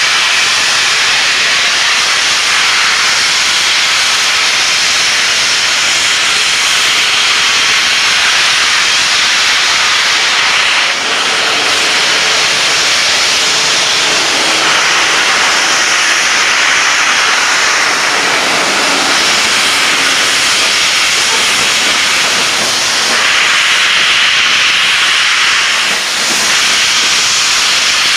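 Royal Hudson steam locomotive blowing steam from its open cylinder cocks as it starts away: a loud, steady hiss, briefly softer about eleven seconds in and again near the end. Open cocks at a start clear condensed water from the cylinders.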